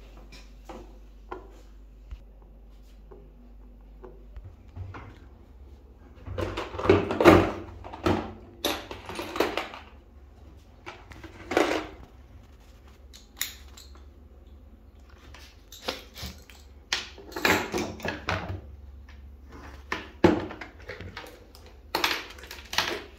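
Metal hand tools and sockets clinking and rattling as they are picked up and set down on a hard surface, in irregular bursts with short pauses between.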